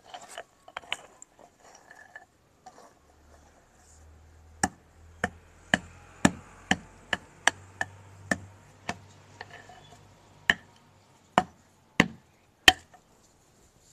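A wooden stick knocking on bricks as they are set in place: about fourteen sharp knocks, irregularly spaced from half a second to a second and a half apart, starting about four and a half seconds in, with a faint low hum under the first few.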